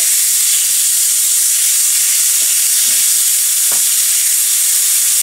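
Grated coconut frying in hot oil with urad dal and curry leaves in a pan: a steady sizzle as a wooden spoon stirs it, with a few light taps of the spoon.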